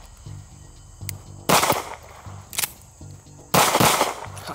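9mm pistol fired twice, single shots about two seconds apart, each a sharp crack with a short echo.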